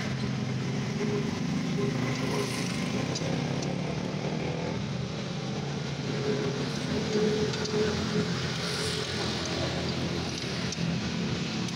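A motor vehicle engine running steadily, with a few faint clicks over it.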